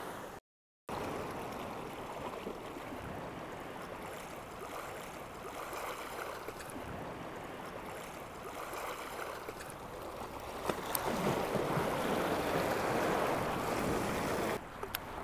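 Small waves washing against rocks at the water's edge, swelling louder for a few seconds near the end.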